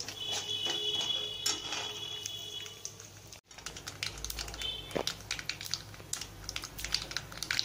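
Mustard seeds popping and crackling in hot sesame oil in a kadai during tempering, many small sharp pops scattered throughout.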